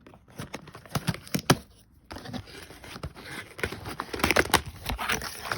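Packaging being torn open and handled: sharp clicks and knocks, then denser rustling and crinkling from about three seconds in.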